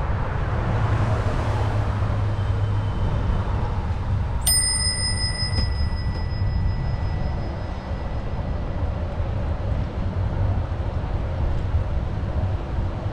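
A bicycle bell rings once about four seconds in, its bright tone fading away over a couple of seconds, over a steady low rumble from riding.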